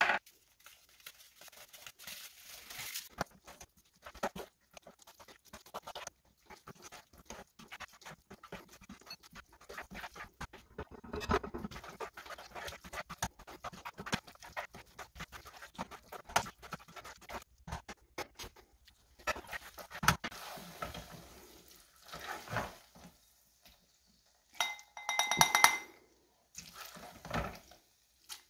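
Spoon stirring and scraping macaroni and cheese in a saucepan: irregular wet squishing and scraping with small clicks. Near the end come a few ringing clinks of spoon and ceramic bowl as it is served.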